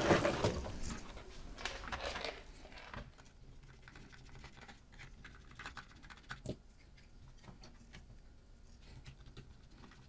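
Rustling and light clatter of hand tools being handled on a workbench mat, then faint, scattered ticking of a small precision screwdriver working screws out of the plastic end cap of a HAMA Tube 2.0 Bluetooth speaker, with one sharper click about six and a half seconds in.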